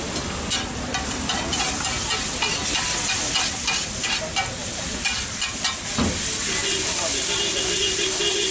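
Eggs sizzling as they fry on a hot pan, with a metal spatula repeatedly clicking and scraping against it. A steady tone comes in near the end.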